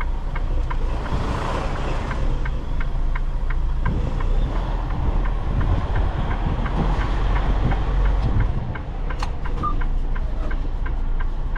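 Semi-truck diesel engine running at low speed while the truck is maneuvered, with a steady, quick ticking of about three ticks a second over it.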